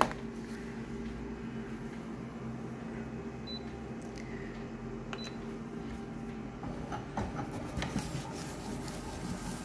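Office colour photocopier humming steadily, with a sharp click at the start and two short high beeps from its control panel around the middle. Near the end its scanner runs with mechanical clicking and tapping.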